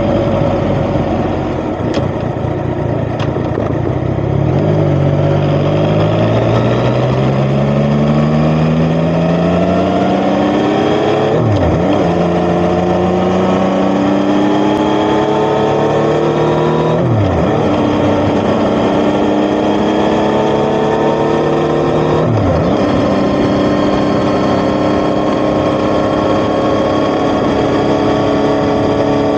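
Yamaha XSR900's inline three-cylinder engine through an Akrapovic titanium exhaust, pulling away about four seconds in and accelerating hard through the gears. The note climbs and drops sharply three times at the upshifts, then settles into a steady cruise.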